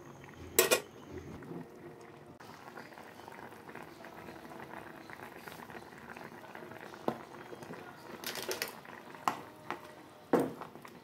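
Tangra fish curry gravy boiling in a pan, a steady low bubbling. A few short clicks are scattered through it.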